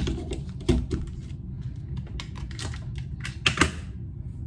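Handling clicks and knocks of a microphone being plugged in and fitted close to the mic: a few sharp taps near the start and a quick double click later, over a steady low hum.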